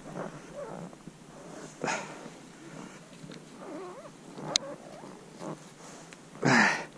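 A hooked zander being played close in on a baitcasting rod and reel: low handling and reel noise, with two loud short rushing splashes, about two seconds in and near the end, and one sharp click midway.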